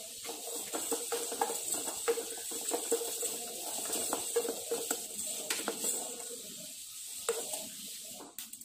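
Wooden spatula stirring black peppercorns being dry-roasted in a pot, the peppercorns rattling and clicking against the pan in quick irregular clicks. The clicking thins out after about six seconds.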